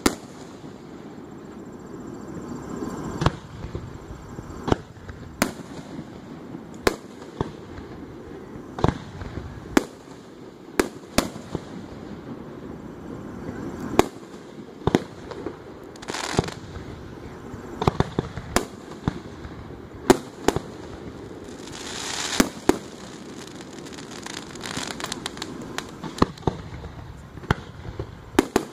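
Aerial fireworks shells bursting: many sharp bangs at irregular intervals, about one to two a second, with stretches of hissing crackle between them in the second half.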